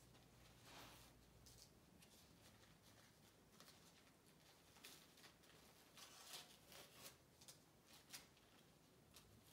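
Near silence with faint, scattered crinkling rustles of a plastic ostomy pouch and its skin-barrier wafer being handled and fitted together in gloved hands.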